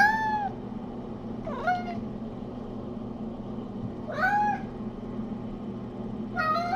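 Domestic cat meowing, four short calls about two seconds apart, each rising and falling in pitch.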